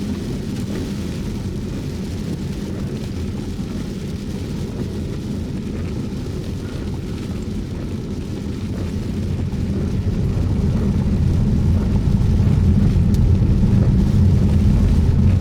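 Road and engine noise inside a moving car: a steady low rumble that grows louder about ten seconds in.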